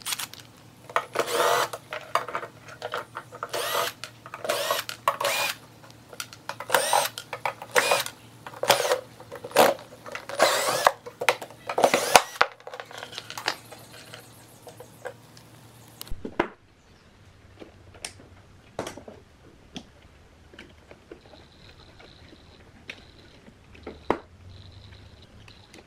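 Cordless drill-driver running in about a dozen short bursts, backing screws out of a metal amplifier case. After that it stops, leaving only a few scattered light clicks.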